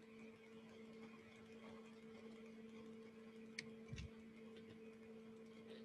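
Near silence: room tone with a faint steady hum and two faint clicks about three and a half to four seconds in.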